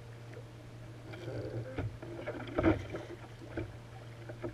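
Irregular knocks and clatters on a plastic kayak from rod-and-reel handling while an angler fights a hooked fish, with water slapping the hull. The loudest knock comes just under three seconds in, over a steady low hum.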